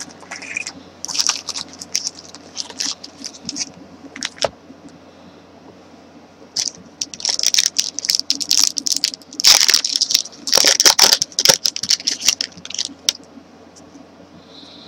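Trading cards and pack wrappers being handled and leafed through: a run of crisp rustles, flicks and scrapes, busiest and loudest in the second half.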